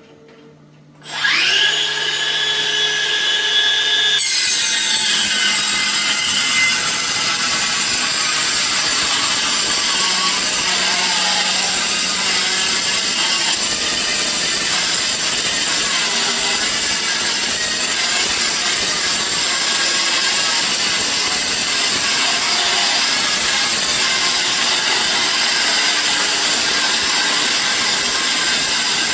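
Makita DCS553Z cordless metal-cutting circular saw starting up about a second in and running free with a steady whine. About four seconds in, the blade bites into 4 mm carbon steel sheet and a loud, rough cutting noise runs on evenly through a long cut.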